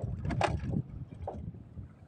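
Water sloshing against the hull of a small wooden boat, with wind rumbling on the microphone; the sloshing is loudest about half a second in.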